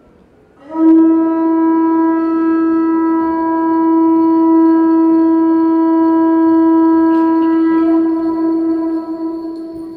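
A conch shell trumpet blown in one long, steady note at a single pitch, starting about a second in and held for about eight seconds before fading away near the end.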